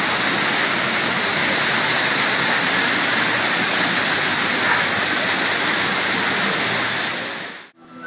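Steady, loud rush of water from the arching jets of a walk-through fountain tunnel, heard from inside the tunnel as the water splashes down on both sides. The sound fades out sharply near the end.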